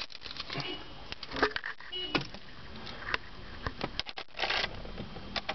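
Car keys jangling and clicking in the ignition of a 2003 Nissan Sentra SE-R as it is turned to start, with scattered clicks and a short rustle about four seconds in. The engine does not crank: a no-start in which the car's electrical power cuts out when the key is turned to start.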